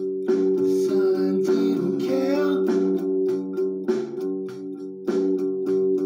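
Guitar music: a sustained low chord held under regular plucked or strummed strokes, a few per second. A wavering higher melodic line rises over it between about one and two and a half seconds in.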